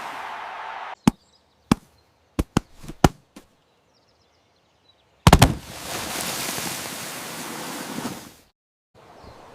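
Several sharp cracks or knocks, spaced irregularly. Then a loud cluster of cracks followed by about three seconds of rushing noise that cuts off abruptly.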